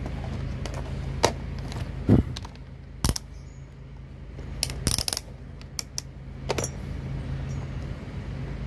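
A string of about eight sharp metallic clicks and clinks, from small metal parts and test gear being handled on a workbench, over a steady low hum.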